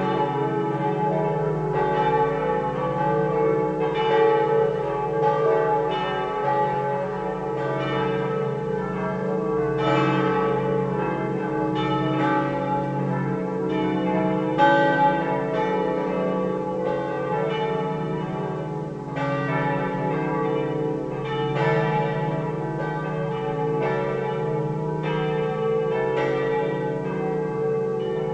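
Church bells swung and ringing together, their strikes overlapping in a continuous, irregular peal. They belong to a set of swinging bells tuned D, E, F sharp, G and A, cast or recast by the Pruneri foundry of Grosio.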